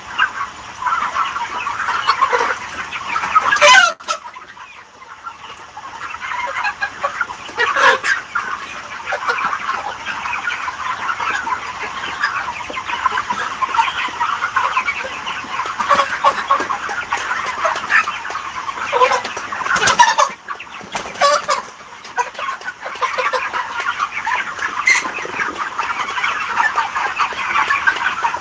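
A large flock of chickens clucking all together in a continuous dense chatter, with a few louder single calls standing out above it. The chatter dips briefly about four seconds in.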